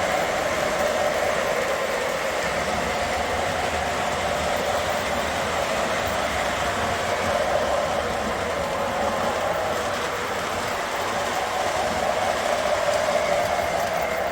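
O gauge model train running on the track: a steady rolling rumble with a constant hum from the motor and wheels, easing slightly about ten seconds in before picking up again.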